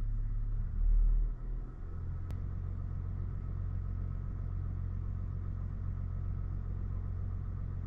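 3.0 Duramax inline-six turbodiesel idling steadily, heard from inside the truck's cab as a low hum, with a brief louder low rumble about a second in.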